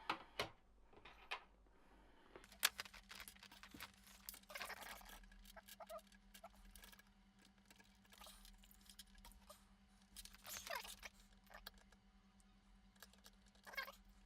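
Faint small clicks, taps and rattles of wires and tools being handled and positioned on a workbench, with a faint steady hum starting about two seconds in.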